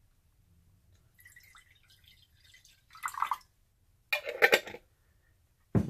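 Pickle juice poured from a glass pickle jar into a mug, splashing and dripping in a few separate spells, the loudest about four seconds in.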